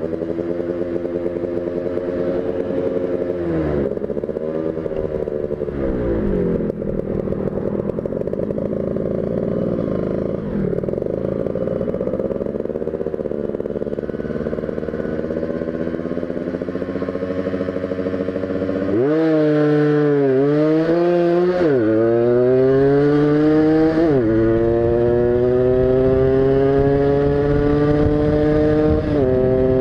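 Tuned motorcycle engine being ridden, its revs rising and falling. About two-thirds of the way through it gets louder and climbs steadily in pitch, dropping suddenly three times as the rider shifts up through the gears.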